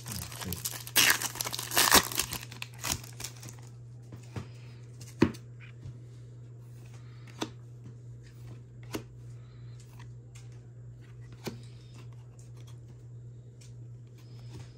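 A foil trading-card pack wrapper is torn open and crinkled, loudest in the first two seconds. After that come a few isolated clicks every couple of seconds, over a steady low hum.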